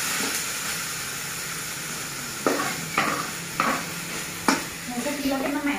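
Tuna and tomato sambal sizzling steadily in a wok while a metal spatula stirs it, scraping and knocking against the pan several times.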